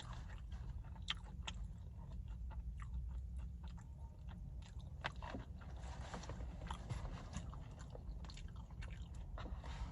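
A person chewing and biting food close to the microphone, with many small sharp mouth clicks over a steady low hum.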